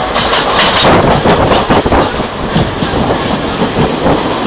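An Indian Railways passenger train passing close alongside on the next track: a loud rush of wheels and coaches, with rapid clattering over the rail joints that is sharpest in the first couple of seconds.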